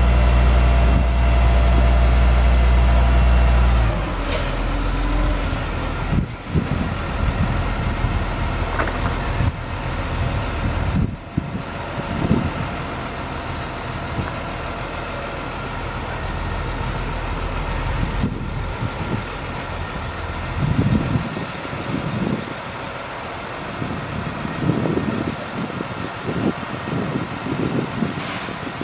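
GMC C7500 digger derrick truck's engine running steadily to power the boom hydraulics while the boom is worked. It is loud for the first four seconds, then drops sharply and keeps running lower, with a few sharp knocks as the boom moves.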